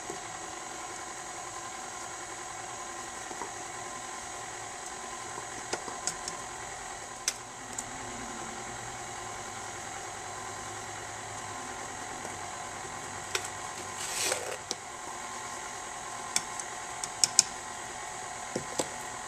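KitchenAid Artisan stand mixer running steadily with a steady motor whine, its flat beater creaming butter and granulated sugar in a stainless steel bowl. A few sharp clicks and one brief louder burst, about two-thirds of the way through, break the hum.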